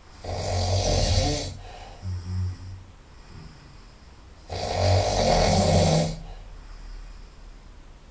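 A person snoring very loudly through the nose: two long snores about four seconds apart, with a shorter, softer snore or breath sound after the first.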